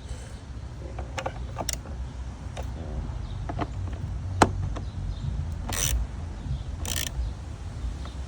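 Scattered clicks and taps of a hand tool on the plastic air intake housing as its screws are driven in one after another, with one sharp click about four seconds in and two short scraping rasps near the end, over a steady low hum.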